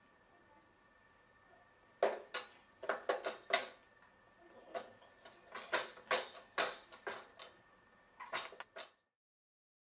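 Hard plastic clacking and knocking as a baby bangs his hands and the attached toys against the tray of a Graco Swing Centre. There is a quick, irregular run of knocks from about two seconds in, which cuts off abruptly near the end.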